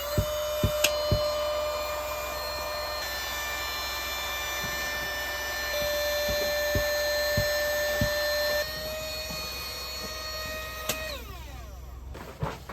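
Electric air pump inflating an inflatable air tent. Its motor winds up at the start, runs steadily with a high whine, and winds down when it is switched off about eleven seconds in.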